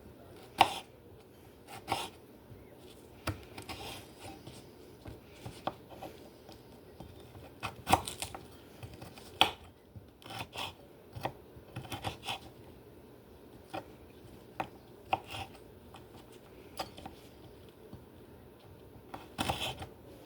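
Kitchen knife cutting up salad ingredients: irregular knocks and taps of the blade, a few of them louder, with softer scraping between.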